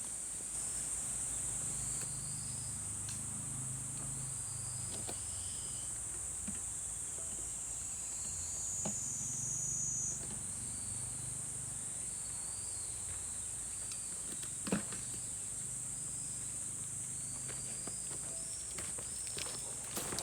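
Summer night chorus of insects in the forest: a steady, high-pitched trill with short chirps repeating a little lower in pitch. Scattered faint clicks, and one sharper knock about fifteen seconds in.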